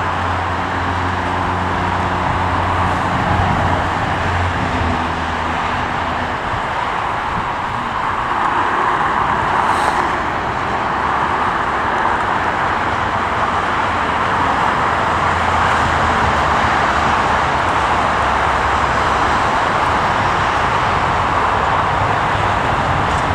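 Steady roar of airport and road traffic noise, with a low engine hum that drops away about seven seconds in and returns for several seconds in the second half.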